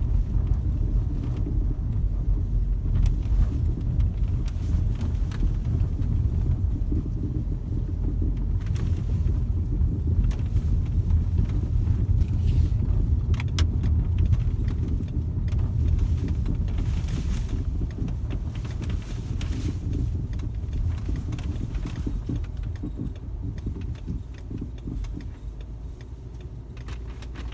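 Volkswagen Passat B6 driven over bumps, heard from inside the cabin: a steady low road rumble with scattered short creaks and clicks from the suspension, which squeaks only on bumps. The rumble eases off somewhat near the end.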